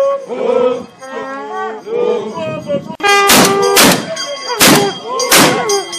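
Voices singing and calling, then from about halfway a series of very loud, sharp bangs roughly one a second, with the voices carrying on between them.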